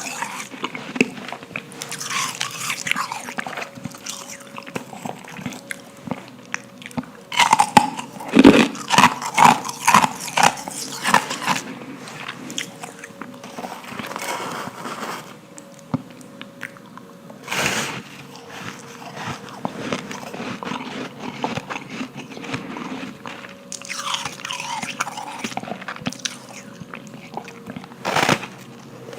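Powdery ice being bitten and crunched close to the microphone: a loud run of crisp crunching bites about a third of the way in, then quieter chewing with single sharp bites now and then.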